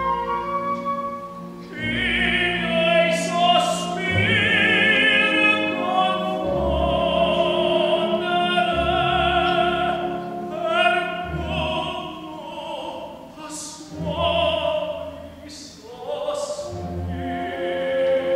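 Operatic tenor singing held, vibrato-laden notes in full voice, accompanied by a string orchestra, with brief breaks between phrases.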